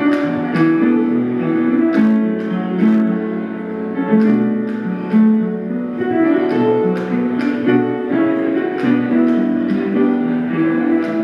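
Instrumental music led by plucked guitar, with a steady beat.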